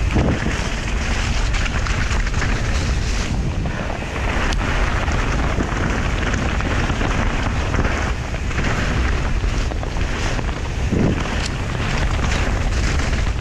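Steady wind rush on a GoPro's microphone as a mountain bike runs fast downhill, mixed with tyres rolling over a wet dirt trail. A few sharp knocks from the bike going over bumps.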